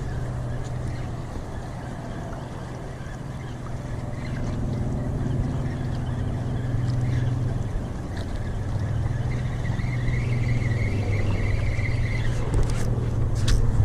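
Steady low engine hum of a boat on the water, shifting in pitch partway through.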